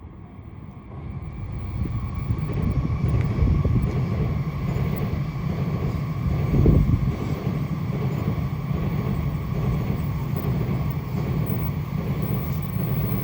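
Train running past a level crossing: a heavy low rumble builds about a second in and carries on strongly, loudest near the middle.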